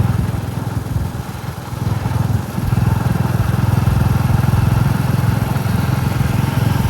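Royal Enfield Classic 350's single-cylinder engine running on the move, easing off about a second in and pulling steadily again from about two and a half seconds.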